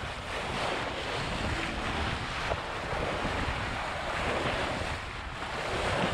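Water rushing and splashing along a sailboat's hull as it sails through choppy sea, in surges every second or two, with wind buffeting the microphone; no engine is running.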